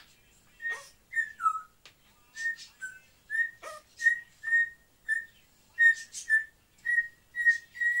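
African grey parrot whistling a run of short notes at one steady pitch, about two a second. A few notes slide quickly downward.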